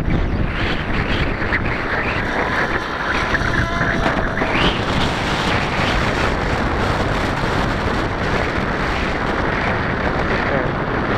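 Heavy wind buffeting the microphone, with the faint whine of a distant electric RC helicopter, a SAB Goblin 770, under it; its pitch shifts and briefly rises about four seconds in.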